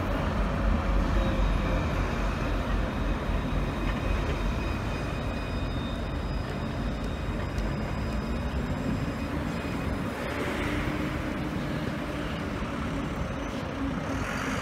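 Alstom Citadis Luas tram running: a steady rumble with a thin electric whine on top, and a low tone rising in pitch from about halfway through. A rush of hiss comes about ten seconds in.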